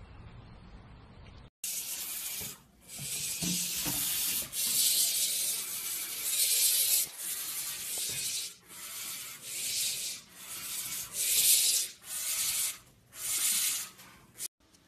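Barn owls hissing: about a dozen harsh, high, breathy hisses of roughly a second each in quick succession, starting suddenly after a faint low rumble.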